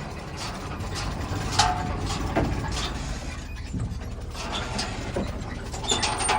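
A tractor engine running steadily at a low rumble, with scattered sharp metallic clicks and clanks around a Massey Ferguson 2270 big baler that has just broken down again. The loudest clank comes about a second and a half in, and more follow near the end.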